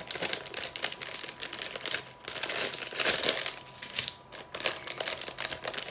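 Thin clear plastic bags of diamond-painting rhinestones crinkling as they are handled and pulled apart, in irregular bursts with two brief lulls.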